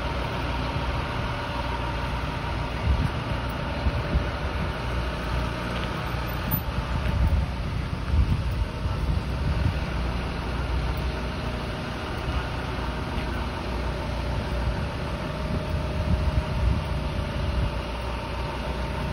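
Utility bucket truck's engine idling steadily.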